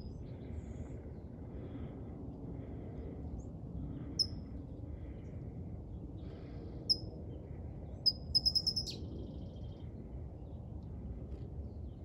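A bird calling from a treetop: single short, high chirps a few seconds apart, then a quick run of several notes about eight seconds in, over a steady low rumble.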